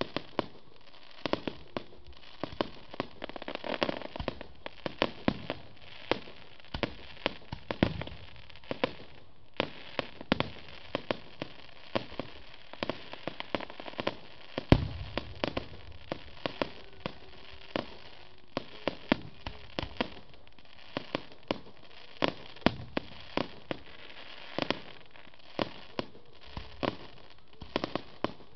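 Aerial fireworks going off in quick succession: a constant run of bangs and crackling bursts, with one louder, deeper bang about halfway through.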